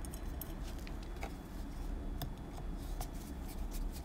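Small Bing carburettor parts being handled and fitted by hand, giving a few scattered light clicks and taps over a low steady hum.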